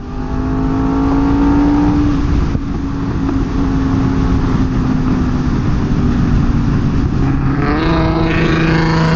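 Loud engine exhaust accelerating: its note climbs in pitch over the first two seconds, holds steady, then climbs again near the end. It is called ugly-sounding, like a straight-through 'fart can' muffler.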